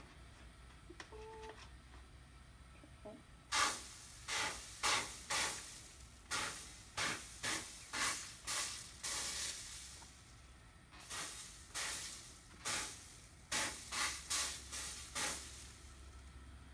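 Liquid flux sizzling on a hot copper pan during tinning: about eighteen short, sharp hissing bursts, each fading quickly, in two quick runs with a pause about ten seconds in.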